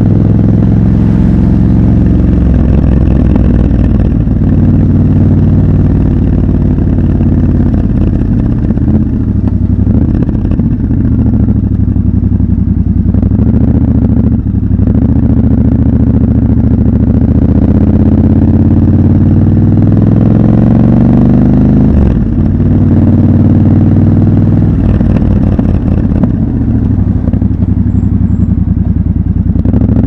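Triumph Scrambler 1200 XC's 1200 cc parallel-twin engine running while riding in traffic, its pitch rising and falling with the throttle, with a few short breaks in its note.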